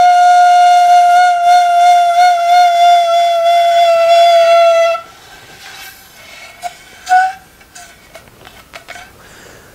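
Danso (Korean notched vertical flute) playing one long held note that wavers slightly in the middle and stops about five seconds in. A brief faint note follows near seven seconds.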